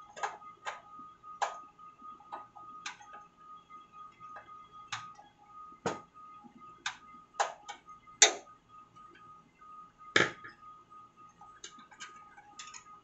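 Irregular metallic clicks and ticks as a screwdriver works the screw of a PCI slot cover on a computer case's sheet-metal back panel and the cover is handled, the loudest a little after 8 seconds and again around 10 seconds. A faint steady high-pitched tone runs underneath.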